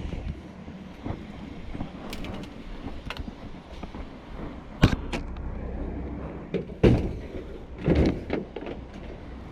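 Objects being dug out of a curbside junk pile: scattered knocks and clatter, with three louder thumps in the second half, over a low rumble.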